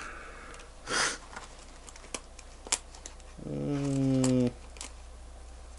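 A low, steady-pitched vocal hum lasting about a second past the middle, with light clicks and a brief rustle earlier, typical of someone rummaging through small watch parts.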